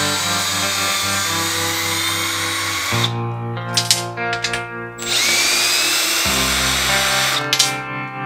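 Cordless drill with a socket bit driving bolts into a steel welding table. Its motor whines up in two long runs with a few sharp clicks between them, under background guitar music.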